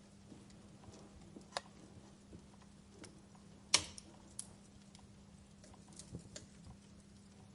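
Wood fire crackling in a fireplace: scattered sharp pops and snaps over a faint hiss, the loudest pop a little under four seconds in. A faint steady low hum runs underneath.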